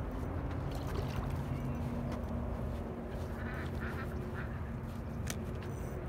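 Ducks quacking a few short times about three to four seconds in, over a steady low rumble of wind on the microphone, with one sharp click near the end.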